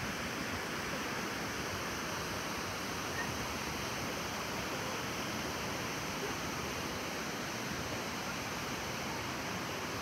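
Steady, even rush of falling water from Harajiri Falls, a wide curtain waterfall plunging into its pool.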